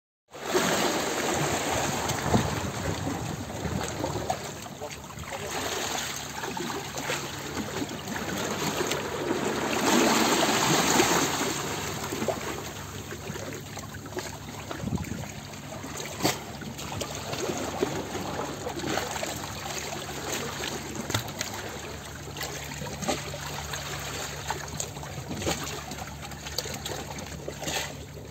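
Water sounds as heard underwater: a steady wash with gurgles and scattered small clicks, swelling for a couple of seconds in the middle, over a faint low steady hum.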